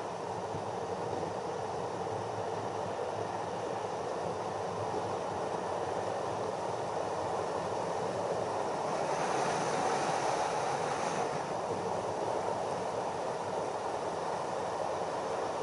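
Street luge rolling downhill at about 80 to 95 km/h: a steady rumble of urethane wheels on asphalt mixed with wind rush, growing slightly louder as speed rises. A brighter hiss comes in about nine seconds in and fades after about two seconds.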